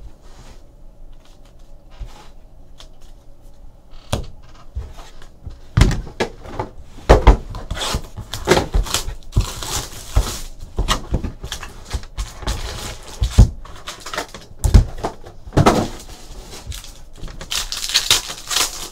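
Trading card boxes and foil packs being handled on a table: scattered knocks of cardboard boxes, and pack wrappers crinkling and tearing, loudest about halfway through and again near the end.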